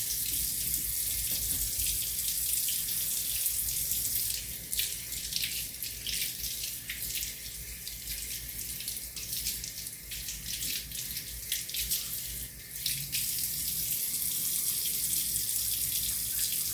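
Kitchen tap running into a sink, a steady splashing hiss; for several seconds in the middle the stream is broken up irregularly, as when something is held under it and rinsed.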